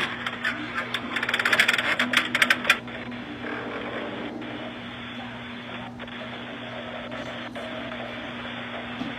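Tinny doorbell-camera audio with nothing above a low treble: about three seconds of clattering, clicking and indistinct voices, then a steady hiss with a faint constant hum.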